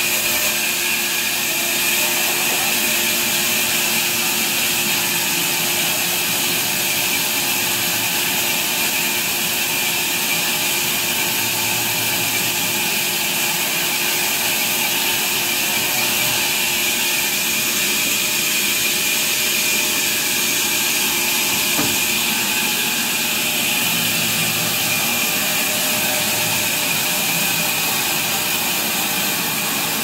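A large band sawmill running steadily, giving an even high-pitched hiss over a low steady hum as the blade runs through timber.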